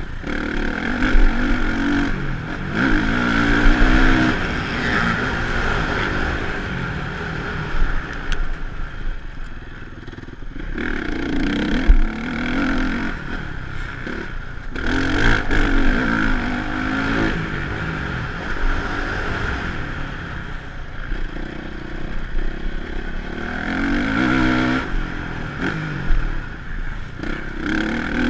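Honda motocross bike engine revving hard, its pitch climbing again and again as it accelerates and shifts up, then dropping away when the throttle is shut for the corners, several times over. Heard from the rider's helmet camera.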